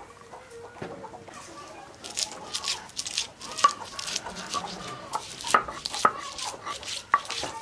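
Chickens clucking in short calls from about two seconds in, over scattered scraping and knocking.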